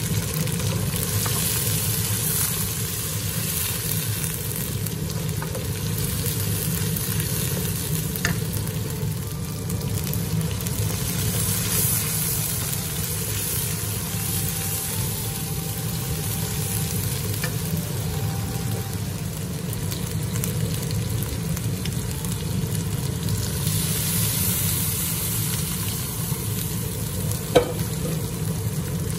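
Spice paste frying in hot oil in a wok, sizzling steadily while a spatula stirs and scrapes through it. One sharp clack near the end.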